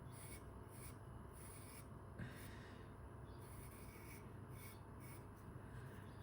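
Faint pencil strokes scratching on sketchbook paper, short and irregular, roughly two a second, as hair is sketched.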